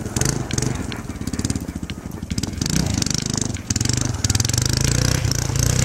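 A small ATV engine running, with a steady hiss of wind on the microphone.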